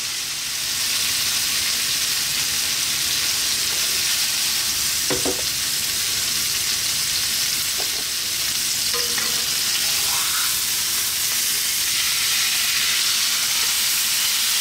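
Masala-coated kingfish steak sizzling steadily in oil in a non-stick frying pan on low heat.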